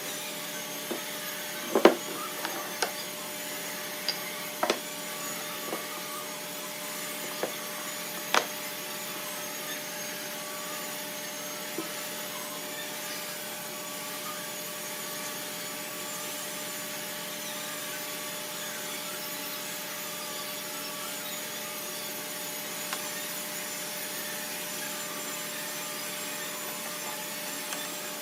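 Steady running hum of a workshop machine motor, such as a dust extractor. Sharp wooden knocks and taps come through it, mostly in the first third.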